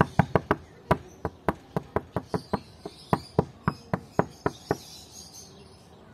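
A rapid, slightly uneven run of sharp knocks, about four a second, stopping about five seconds in.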